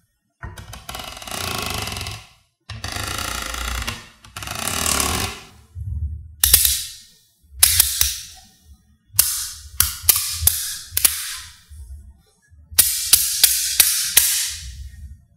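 Small neodymium magnet balls: first three stretches of dense rattling as the balls grind and roll against one another while the sheet is split apart, then a series of sharp clicks in quick runs as magnet blocks and strips snap together.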